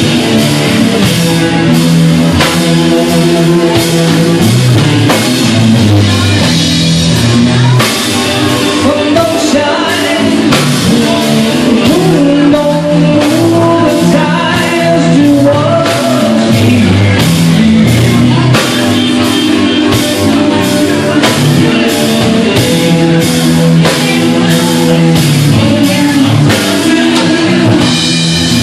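Live rock band playing: electric guitar, electric bass and drum kit, with a steady drum beat.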